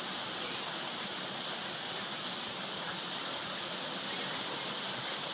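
Steady, even rushing hiss with no distinct events, brighter in the upper range.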